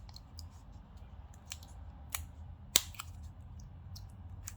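Scattered small clicks and taps of plastic phone parts and tools as a loudspeaker module is fitted back into a Samsung Galaxy A52s, with one sharper click a little past halfway. A faint steady low hum underneath.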